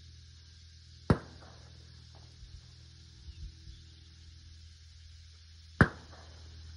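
Two rifle shots about four and a half seconds apart from a Henry Long Ranger lever-action hunting rifle, each a sharp crack with a short fading tail.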